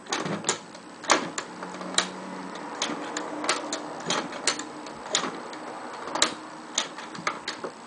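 Homemade Lego pinball machine in play: irregular plastic clicks and clacks, about two or three a second, as the gear-driven Lego flippers are worked and a small steel ball rolls and knocks across the brick playfield.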